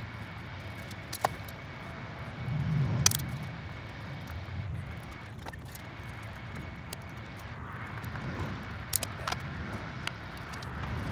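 Steady low outdoor background rumble, with a few light sharp clicks and taps as wire ends fitted with ferrules are handled and worked into an electrical connector.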